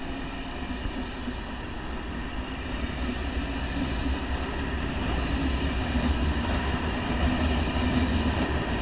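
A train running on the rails, growing louder over the first few seconds and then holding steady: a rumble with a steady hum of several tones over it.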